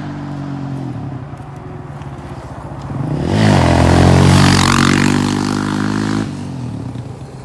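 Motorbike engine running steadily, then revving up about three seconds in and staying at its loudest as it rides close by; the level drops off sharply near the end.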